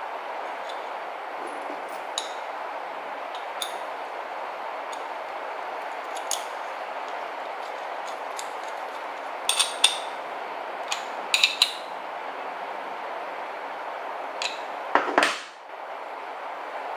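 Small metal clicks and clinks of a bolt and an inline skate wheel being fitted by hand into an aluminium T-track, with two quick clusters of clinks about halfway through and a louder short scrape near the end, over a steady background hiss.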